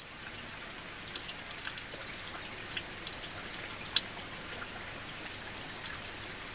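Rain pattering: a steady hiss with scattered light drop ticks, one sharper tick about four seconds in.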